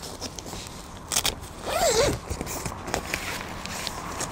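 Nylon tent fabric rustling as it is handled, with a few sharp clicks about a second in. A short wavering tone is heard just before two seconds.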